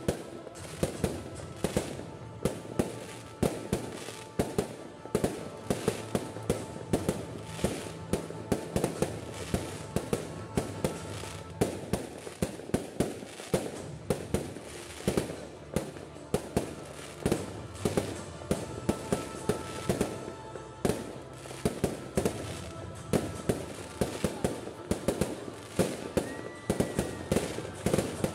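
Fireworks display: aerial shells bursting in a steady run of sharp bangs, two or three a second, with crackling between them.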